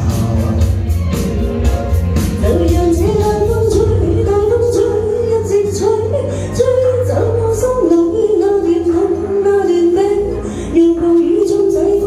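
Woman singing a Chinese pop song into a handheld microphone over a karaoke backing track with a steady beat; her voice comes in about two and a half seconds in.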